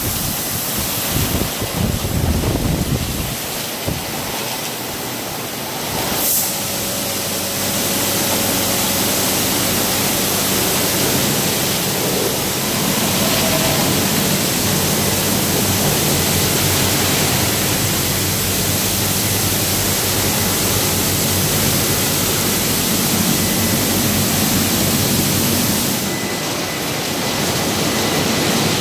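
MacNeil tunnel car wash running: water jets spraying and rotating wash brushes scrubbing a car, a loud, steady rushing noise. A low, steady machine hum joins about six seconds in, with one brief sharp knock just before it.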